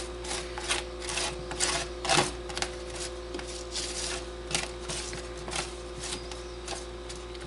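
Silicone spatula scraping and pushing roasted potatoes around a metal sheet pan, an irregular run of quick scrapes and taps with one louder scrape about two seconds in, as the potatoes are coated in oil and garlic.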